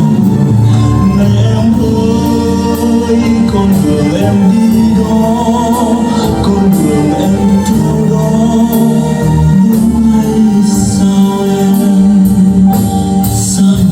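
A slow song playing through a pair of Klipsch RP-500M bookshelf speakers, with sustained chords over a regular beat.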